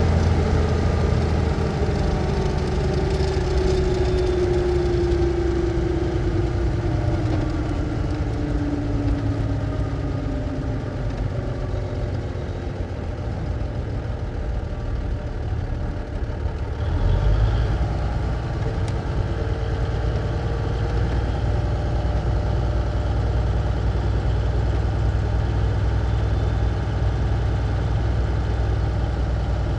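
1954 big rig truck engine running, its pitch sinking slowly over the first ten seconds as the revs drop. About halfway through it surges deeper and louder for a moment, then settles into steady low running.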